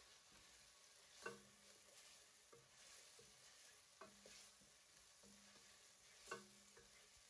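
Food frying in a pan with a faint sizzle as it is stirred, the utensil knocking against the pan three times.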